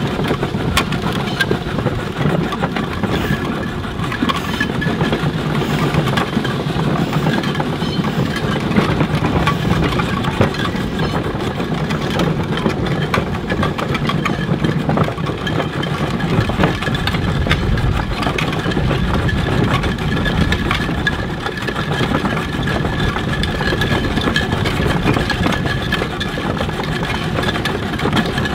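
Scale-model steam traction engine driving along a road: a steady, fast mechanical clatter from its running motion and straked steel wheels.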